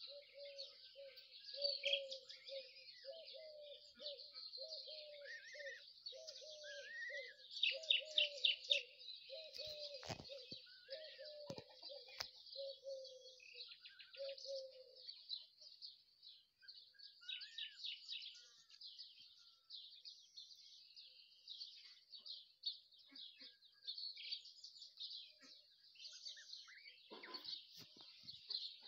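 Ducklings peeping: a steady chatter of high chirps, with louder runs of quick peeps about a third of the way in and again just past the middle. A lower call repeats about once a second through the first half, then stops.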